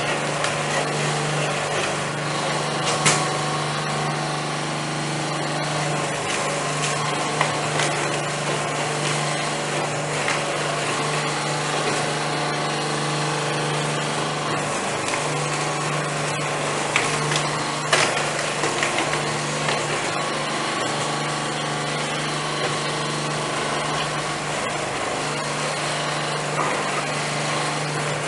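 Coconut husk peeling machine running steadily with a constant hum, its spiked rollers tearing the fibrous husk off coconuts fed in by hand, with a few sharp cracks.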